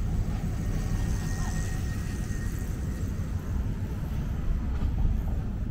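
Outdoor street ambience: a steady low rumble with faint road traffic, and no single event standing out.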